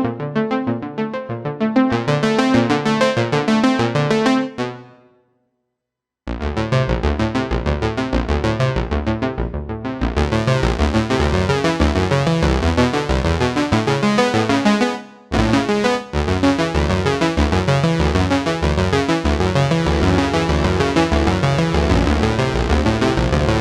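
Roland J-6 chord synthesizer playing its factory preset sounds as rhythmic pulsing chord patterns. One pattern fades out about four seconds in. After a short silence a new, fuller pattern starts and drops out briefly once near fifteen seconds.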